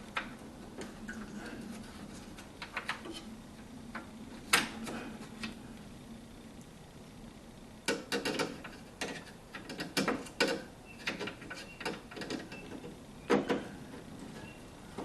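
Scattered clicks and taps of a hand screwdriver and screws being worked into a parking-light bracket, with one sharp knock about four seconds in and a busy run of clicks past the middle. A faint steady hum underneath.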